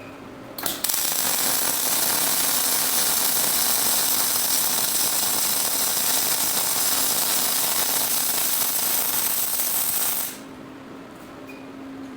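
Collaborative welding robot's welding arc crackling steadily for about ten seconds, starting abruptly just under a second in and cutting off suddenly near the end.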